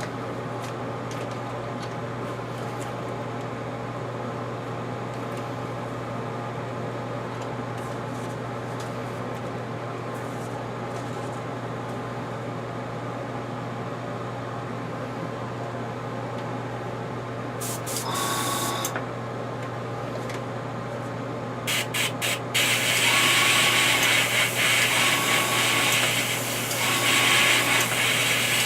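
A steady low hum, then, from about two-thirds of the way in, an airbrush spraying paint: a few short hissing bursts, followed by longer sprays with brief breaks near the end.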